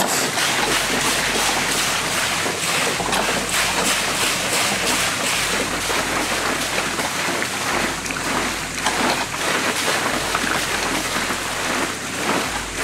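Steady rush of pumped water driving a water-powered sawmill replica, mixed with the wooden frame and saw blade working down into a log.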